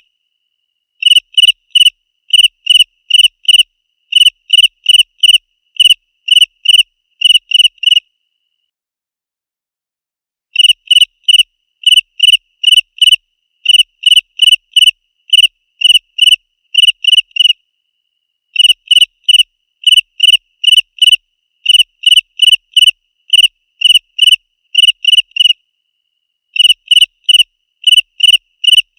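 A cricket chirping loudly and clearly: short, high-pitched chirps about two a second, in bouts broken by a pause of about two seconds some eight seconds in and shorter pauses later.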